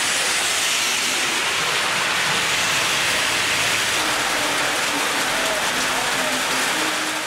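Heavy rain pouring onto a paved road, a steady dense hiss.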